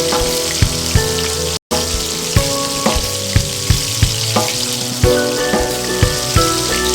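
Chicken wings frying in hot oil, a steady sizzle, under background music of plucked notes with a regular beat. The sound drops out for an instant about one and a half seconds in.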